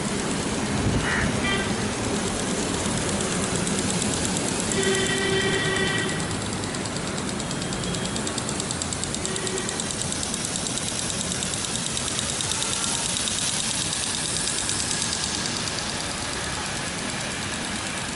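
Rooftop impact sprinklers spraying water with a fast, steady ticking and the hiss of the spray. A horn sounds for about a second around five seconds in, and more faintly again a few seconds later.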